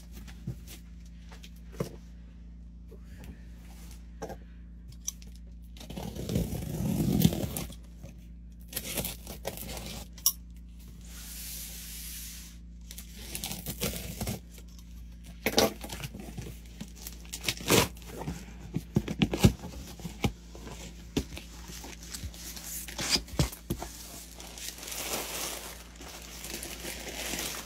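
Cardboard shipping box being opened by hand: packing tape slit with a box cutter and torn away, with scrapes, knocks and rustling against the cardboard, and packing paper rustling near the end.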